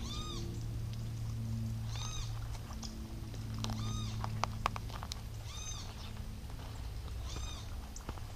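An animal's short mewing call, repeated five times about two seconds apart, over a steady low hum.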